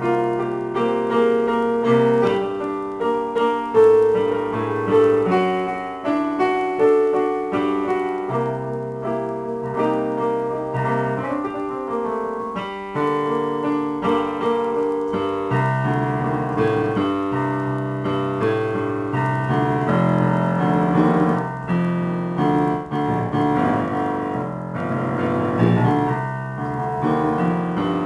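Yamaha digital piano played solo: an improvised piece of chords and melody, with notes struck one after another without a break.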